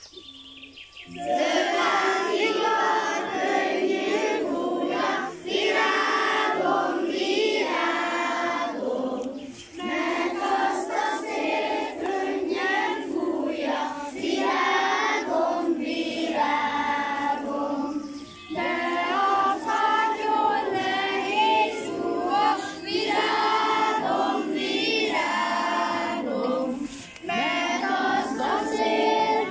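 A group of young schoolchildren singing a song together, unaccompanied, with a woman's voice among them. The singing starts about a second in and goes on in phrases with short pauses between them.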